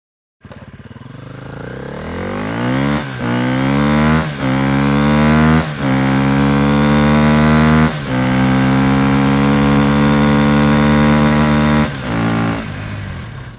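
Vehicle engine accelerating through the gears: the revs climb and fall back at four gear changes, hold steady at cruising speed, then drop and fade away near the end.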